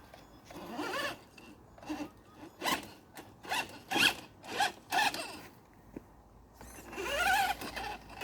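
Radio-controlled car's electric motor whining in short revs, about six quick blips, then one longer rev that rises and falls near the end.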